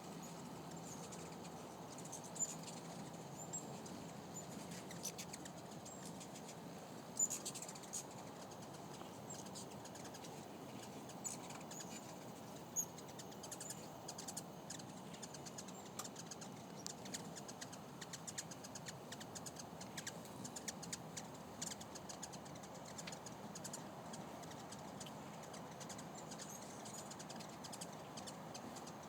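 Hummingbirds at feeders chirping: many short, high chips and ticks scattered irregularly, a few louder ones standing out.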